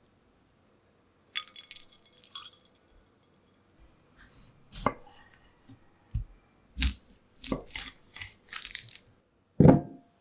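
Kitchen knife slicing through cherry tomatoes onto a wooden cutting board: a run of quick, sharp cuts, after a few scattered handling knocks, with a louder low thud near the end.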